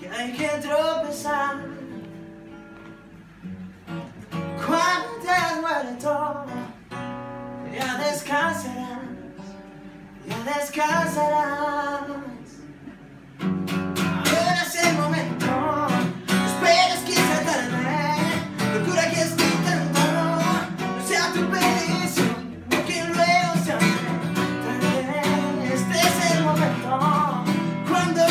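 Live solo acoustic guitar and a man singing. The first half has sung phrases over sparse chords, with pauses between them. About halfway through, the guitar breaks into full, louder strumming under the voice.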